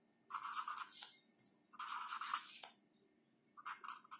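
Marker pen writing on a board: three faint stretches of scratchy strokes, each about a second long, with short pauses between them.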